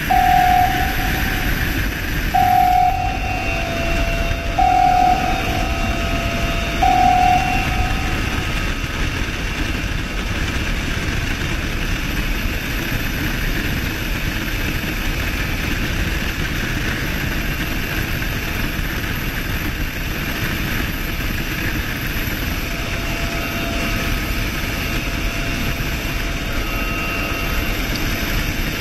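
A steady, unbroken engine roar. Over it come four short beeps, one about every two seconds, in the first eight seconds.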